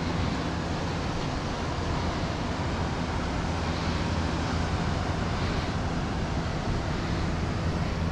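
Steady low rumble and hiss of wind buffeting the microphone.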